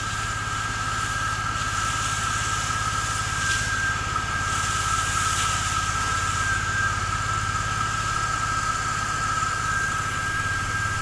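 Pressure washer running steadily, its motor and pump making a constant drone with a steady whine, while water sprays from the wand with a hiss that swells and fades in the middle.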